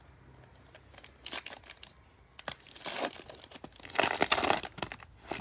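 A trading card pack wrapper being torn open and crinkled, in several bursts of crackling, the loudest about four seconds in.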